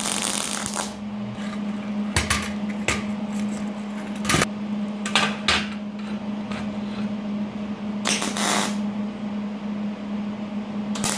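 Welder tacking steel caster mounting plates to a bar: a crackling arc for under a second at the start, several brief crackles and clicks in the middle, one more half-second burst later, and the arc striking again at the end, over a steady hum. The welds are kept short so the casters don't heat up and warp.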